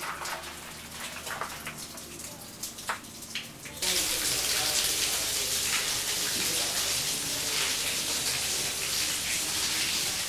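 A steady rush of running water starts abruptly about four seconds in, after a few faint clicks and light knocks.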